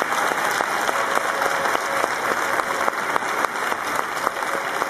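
Large crowd applauding continuously, a dense steady clapping.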